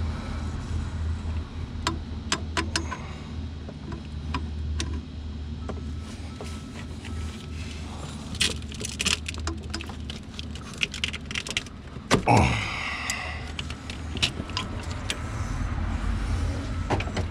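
Pliers clicking and scraping on metal hose clamps and fittings, with scattered small metallic rattles over a steady low hum. A short, loud falling squeak comes about twelve seconds in.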